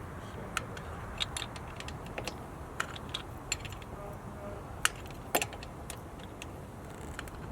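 Irregular metallic clicks and clinks of hand tools working on engine parts, with two louder clinks about five seconds in.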